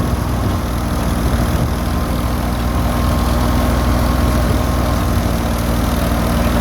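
Tractor-driven wheat thresher running steadily, its engine a deep, even hum that holds one speed throughout.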